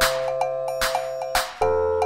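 Background music with sustained chords and a steady beat; the chord changes about a second and a half in.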